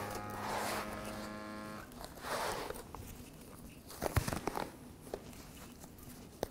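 A small electric motor buzzes steadily for nearly two seconds and then stops. After it comes the rubbery rubbing and peeling of a prosthetic leg's suspension sleeve being pulled down over the knee, with a few soft knocks about four seconds in.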